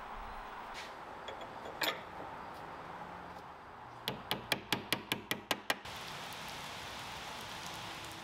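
Light, quick hammer taps, about nine in a second and a half, driving a small pin into a brass corner cap on a wooden credenza's edge. They are followed by the steady hiss of rain falling on pavement.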